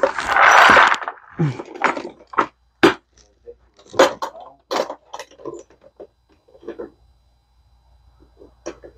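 Hand tools and plastic parts clattering as tools are packed into a plastic toolbox. A loud rattle comes in the first second, followed by scattered clicks and knocks.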